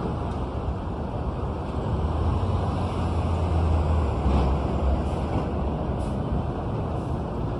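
City street traffic noise: a steady low rumble of passing vehicles that swells and deepens for a couple of seconds in the middle.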